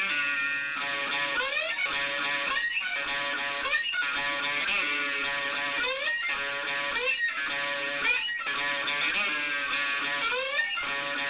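Lowebow Cat diddley bow played through a distorted 1957 Fender Champ amp with an MXR Distortion Plus pedal: a repeating blues riff with a sharp attack about once a second and notes sliding up in pitch.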